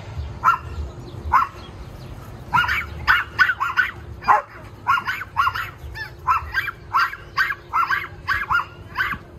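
Dog barking: a few spaced barks, then from about two and a half seconds in a rapid run of short, sharp barks, about two a second.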